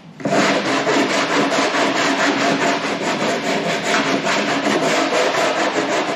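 Hand sanding the edge of a plywood turtledeck former with a sanding block, in quick back-and-forth strokes. It starts about a quarter second in and keeps going steadily.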